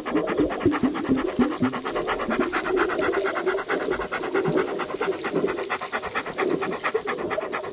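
A dog panting rapidly in a fast, even rhythm.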